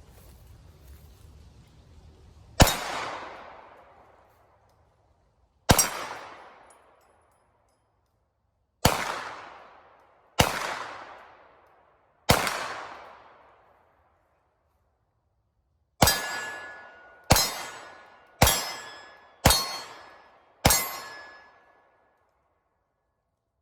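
Ten 9mm pistol shots from a Polymer80 Glock 19-style handgun, each a sharp crack with a ringing tail that dies away. The first five come a few seconds apart; the last five are quicker, about one a second.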